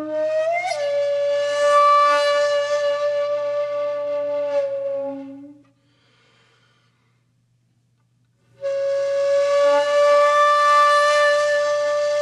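Background music: a wind instrument holding long, steady notes. It breaks off for about three seconds midway, then comes back on another long note.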